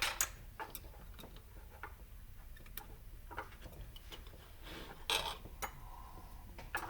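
Light, irregular clicks and taps of small metal parts (pins, springs and the pressure plate of a drive hub) being handled and fitted, with a brief louder clatter about five seconds in.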